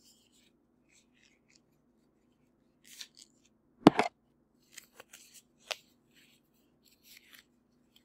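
Disposable exam gloves being pulled onto the hands: scattered rustling and crinkling of the thin glove material, with one louder, sharper sound about four seconds in.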